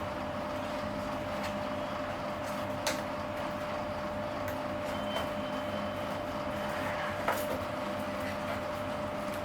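Steady background hiss with a constant hum, broken by a few light clicks and taps from ceiling fan parts being handled during unboxing.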